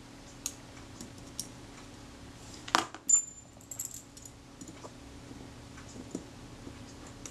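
Small metal camera parts of a Kodak Retina IIIS film advance and steel tweezers clicking and tapping during reassembly, with one sharp metallic clink and a brief high ring about three seconds in, then a few light ticks.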